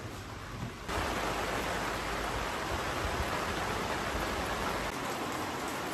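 Heavy rain pouring down, a steady dense hiss that jumps louder about a second in.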